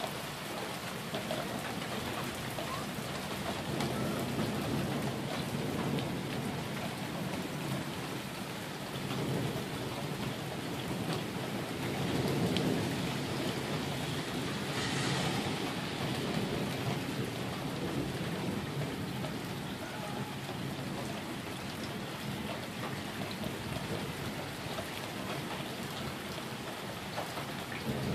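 Steady rain falling, with low rolling thunder swelling and fading in long rumbles through the middle. A brief sharper hiss comes about halfway through.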